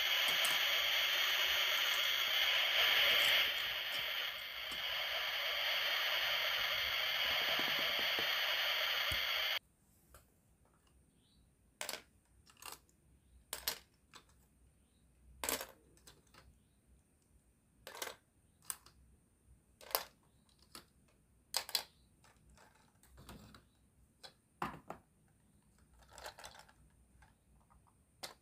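A steady sizzling hiss like food on a grill, for a toy barbecue grill, that cuts off abruptly about ten seconds in. Then light, scattered clicks and taps of plastic toy food skewers being handled and set on a plastic tray.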